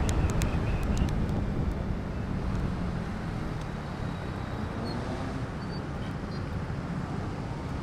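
Motorcycle riding along with wind noise on the microphone and the hum of its engine. The sound dies down over the first few seconds as the bike slows into slow-moving traffic, then stays at a low steady level.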